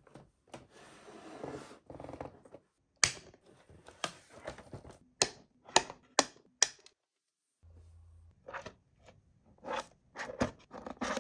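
Toy packaging being taken apart: cardboard and plastic rustling, then a run of about five sharp single clicks as the plastic fasteners are cut. Near the end, more clicks and rustles as small plastic hair charms are pushed out of their cardboard backing card.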